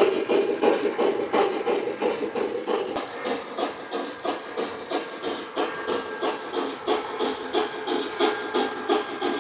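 Lionel B&O EM-1 O-gauge model steam locomotive running, its onboard sound system giving steady rhythmic chuffing with hiss, a few chuffs a second.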